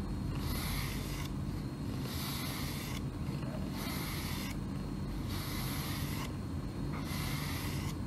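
Domestic cat purring, a steady low rumble, while a pet grooming brush is drawn through its fur. A hissy rasp comes and goes about every second and a half.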